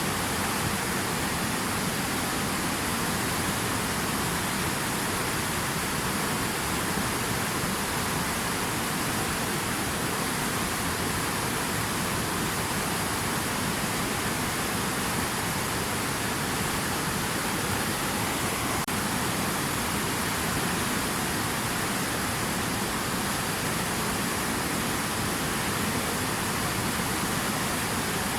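Steady rush of water, an even hiss with no breaks or changes.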